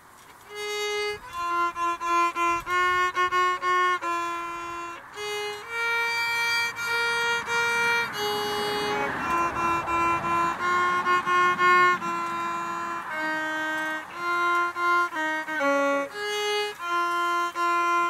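A violin playing a tune of short, separate notes, starting about half a second in.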